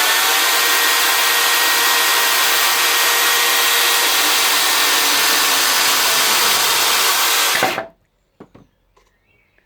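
Makita electric chainsaw running at full speed and cutting through wood, a loud steady sound for about eight seconds that stops sharply near the end as the saw is switched off.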